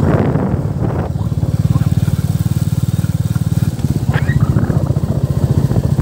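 Royal Enfield Bullet's single-cylinder engine running under way, a fast, even train of low thumping firing pulses.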